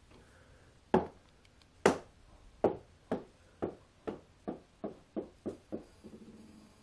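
Rubber bouncy ball bouncing on a hard surface: about eleven bounces, coming faster and faster and growing softer as it settles, then a brief faint rumble as it rolls.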